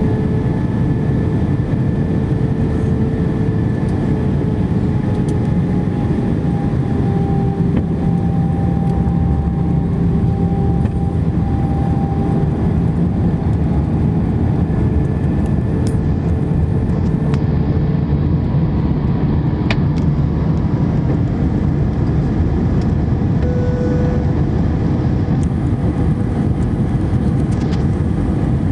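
Steady cabin roar inside an Airbus A319-114 on its approach: engine and airflow noise heard through the fuselage. Faint humming tones from its CFM56-5A engines drift slightly up and down in pitch as the thrust changes.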